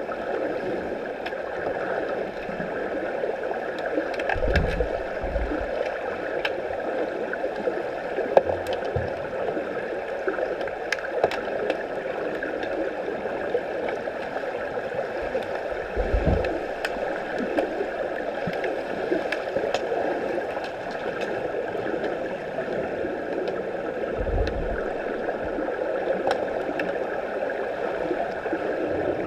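Underwater pool ambience during underwater hockey: a steady muffled rushing of water with scattered sharp clicks, and a few brief low thumps near 4–5 seconds, about 16 seconds and about 24 seconds in.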